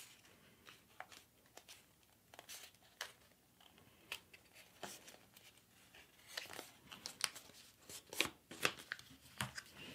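A sheet of paper folded by hand into a paper airplane. The layers give faint crinkles and crackles as they are wrapped tightly around an edge and creased to lock together, sparse at first and busier from about six seconds in.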